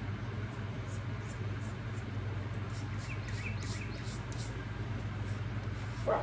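A steady low hum, with a few faint bird chirps about three seconds in.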